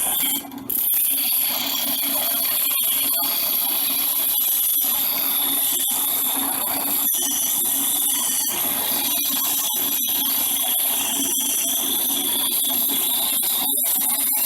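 Drill press spinning a bolt-mounted steel round while a hand file is held against it to turn it down, giving a steady high metallic ringing squeal over the motor's hum. The sound breaks off briefly now and then as the file is lifted and set back.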